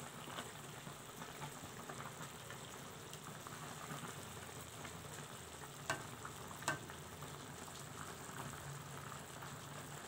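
Chicken pieces simmering in a spiced broth that has cooked down low in the pan, bubbling and sizzling softly. Two light taps come a little past the middle.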